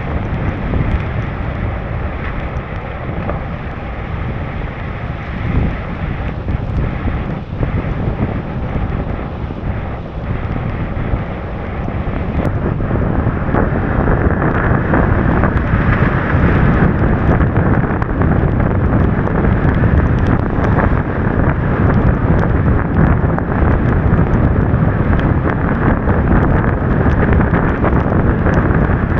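Wind buffeting the microphone of an action camera mounted on the outside of a moving car, over the hiss of tyres on wet pavement. It grows louder about halfway through and stays up.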